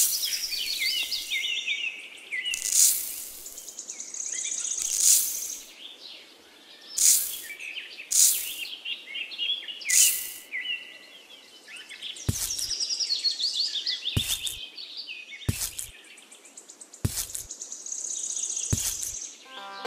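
Birds chirping throughout, with sand poured from a small plastic bucket in six hissing pours over the first ten seconds. These are followed by five short soft taps as plastic grass tufts are pressed into the sand.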